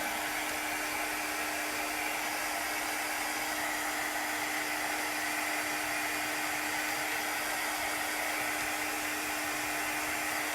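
Handheld dryer blowing steadily, a constant whir with a low hum, drying the freshly applied chalk paste.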